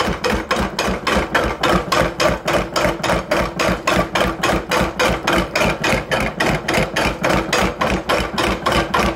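Restored 50-lb Little Giant mechanical trip hammer running slowly with its leather clutch only lightly engaged, the ram cycling in a fast, even rhythm of several blows a second as the dies come together on a piece of rubber.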